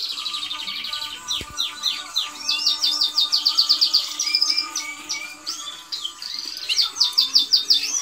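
Canaries singing: continuous high warbling song made of fast trills and rolls, with runs of rapid, evenly repeated notes about two and a half seconds in and again near the end.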